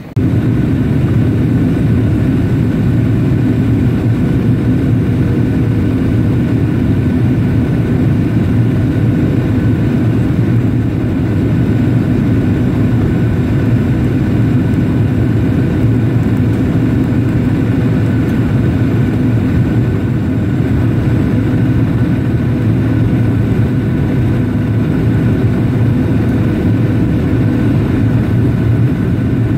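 Jet airliner's turbofan engines heard from inside the cabin by the wing: a loud, steady rush of engine and airflow noise, heaviest in a low hum, with a faint steady whine on top.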